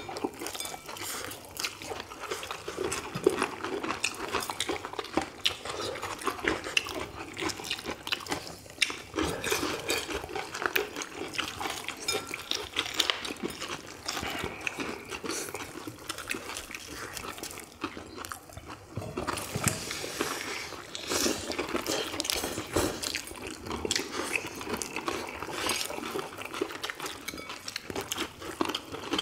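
Several people eating crispy fried chicken drumsticks: irregular crunching bites into the crust and wet chewing.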